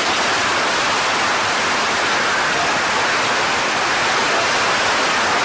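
A steady, even rushing hiss with no tone or rhythm.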